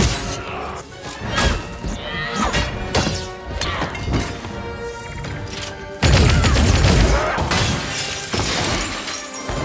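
Action-film soundtrack: dramatic music under a run of fight impacts, with a sudden loud crash about six seconds in and glass shattering.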